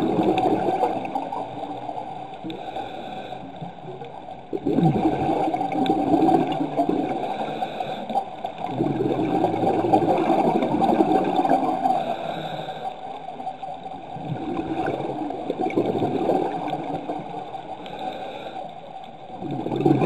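Scuba diver's exhaled bubbles gurgling and rushing past the underwater camera in bursts every three to four seconds, over a steady faint hum.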